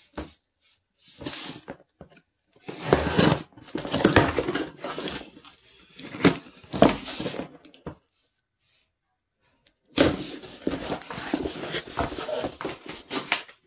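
A box of packaging being opened and unpacked by hand: rustling and crinkling in bursts, with a pause of about two seconds partway through.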